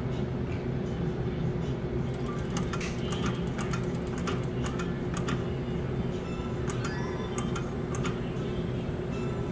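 Skill game machine spinning its reels: from about two seconds in, a run of rapid electronic ticks and short beeping tones as the reels spin and land, over a steady low hum.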